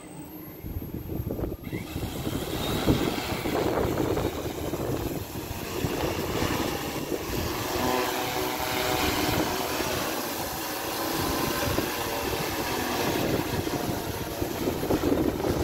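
Large multirotor drone's motors and propellers spinning up about a second and a half in as it lifts off, then a loud, steady propeller drone while it hovers.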